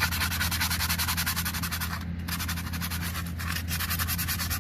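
Folded sandpaper worked by hand over a used brake pad's friction surface to smooth out the rings worn into it: quick, even back-and-forth rasping strokes with a short pause about two seconds in. A steady low hum runs underneath.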